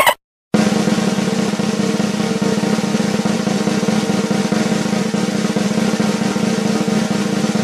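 Music: a continuous snare drum roll over steady held tones, starting about half a second in after a brief silence.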